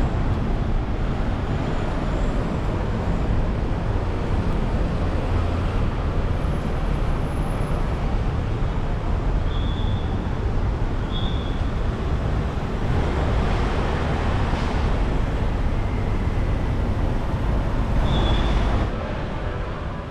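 Steady rumble of road traffic on a busy multi-lane city street, cars passing below, with a few short high-pitched tones. Near the end it drops to a quieter, steadier hum.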